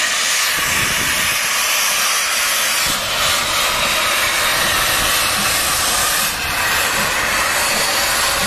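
Colliery steam locomotive giving off a loud, steady hiss of escaping steam, with faint low thuds underneath.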